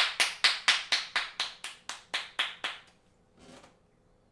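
Hands clapping in a fast, even rhythm, about four claps a second, stopping about three seconds in.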